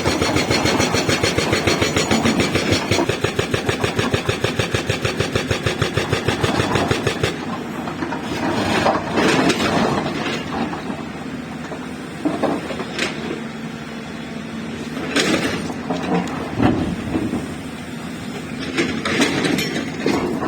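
Excavator-mounted hydraulic rock breaker hammering stone in a fast, even run of blows, stopping about seven seconds in. The excavator's diesel engine then keeps running with scattered clunks and scrapes of rock.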